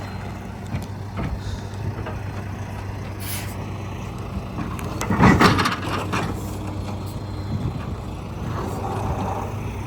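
Heavy diesel engine running steadily. A short hiss comes about three seconds in, and a loud brief burst of noise about five seconds in.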